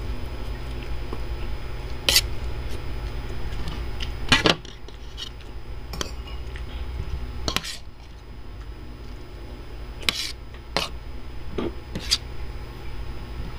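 Metal spoon and fork clinking and scraping against ceramic plates: about seven sharp clinks spread out, the loudest a quick cluster about four seconds in, over a steady low hum.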